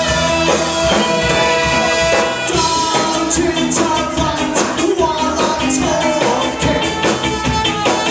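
Live ska band playing at full volume: horns and band hold long notes for the first couple of seconds, then the drums drive a quick, steady cymbal beat under the guitar, bass and horns.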